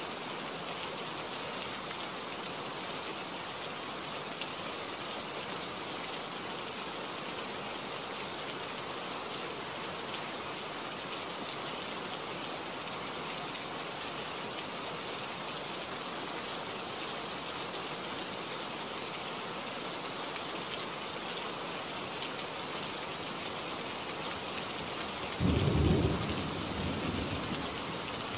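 Steady rain falling, with a sudden clap of thunder near the end that rumbles and fades over a couple of seconds.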